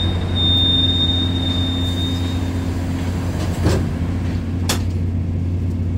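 Taiwan Railway train's side door closing: a high steady warning tone for about two and a half seconds, then two knocks about a second apart as the door shuts. A steady low hum from the standing train runs underneath.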